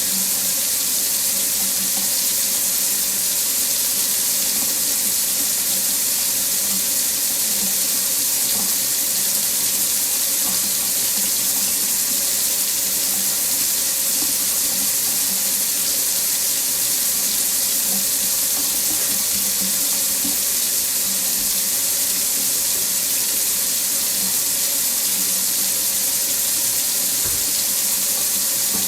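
Water running steadily from a faucet into a sink, an even hiss with no changes.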